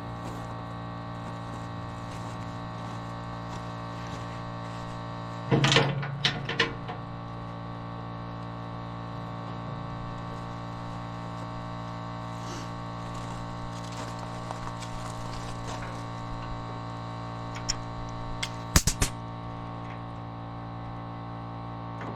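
Air compressor running with a steady hum. A few knocks sound about six seconds in, and sharp clicks come near nineteen seconds.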